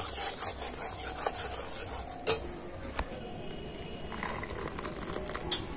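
A metal ladle scraping and clinking in a metal kadai of thick reduced milk, with a few sharp knocks, then the thick milk poured from the pan into a glass bowl.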